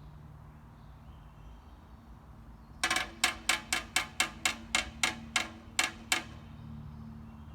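A quick run of about a dozen sharp, ringing strikes, about four a second, lasting some three seconds, over a low steady hum.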